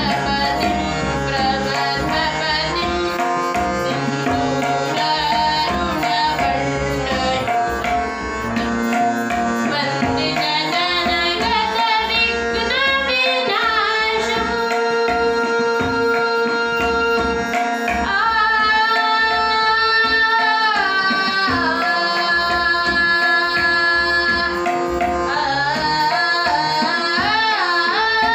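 A boy sings a devotional song, accompanied by harmonium and by tabla played in a steady rhythm. In the second half the voice and harmonium hold several long notes.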